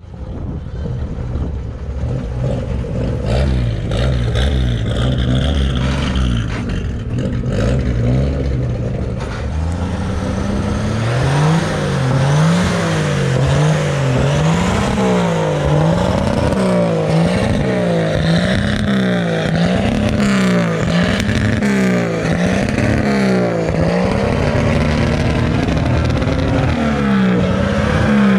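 Old pickup truck's engine running at a steady speed, then from about eleven seconds in revved up and down over and over in an even rhythm, roughly once a second.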